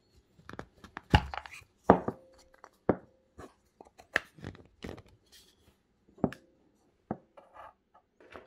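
Unpainted wooden matryoshka nesting dolls knocking and clicking as their hollow halves are pulled apart and the smaller dolls are set down on a wooden table. It is a series of sharp, separate knocks, loudest about one and two seconds in.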